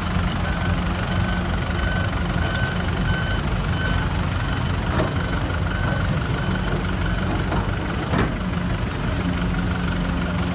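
Heavy diesel construction machinery running steadily, with a backup alarm beeping about twice a second and two short knocks, the louder one about eight seconds in.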